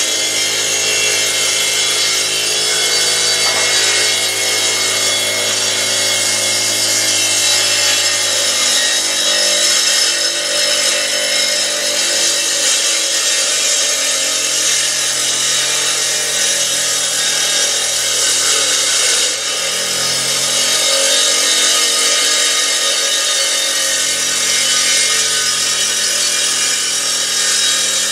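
Homemade solar-powered sawmill sawing lengthwise through a log: a continuous cutting rasp over a motor hum. The hum's pitch shifts several times, because the mill runs directly off solar panels with no battery and slows whenever a cloud passes.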